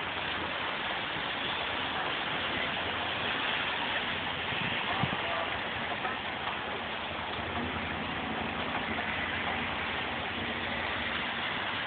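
Strong storm wind rushing steadily, an even roar with no distinct gusts or impacts.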